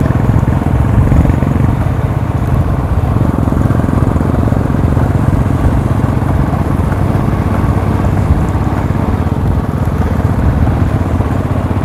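Royal Enfield motorcycle engine running steadily under way, heard from on the bike, with a close, even thumping drone as it climbs a mountain road.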